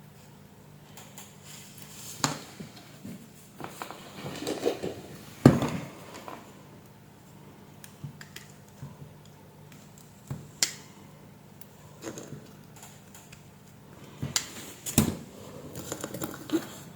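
Irregular clicks and taps of small metal tools and a USB connector being handled on an electronics workbench, as the connector's through-hole pins are bent straight. The loudest click comes about five and a half seconds in, over a faint steady hum.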